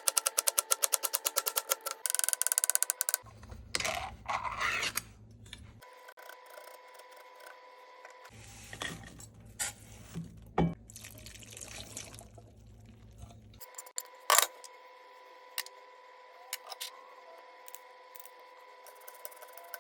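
Kitchen food-preparation sounds: a fast, even run of knife chops on a cutting board at the start, then scattered clatters, knocks and rustles, with one louder knock about two-thirds of the way through.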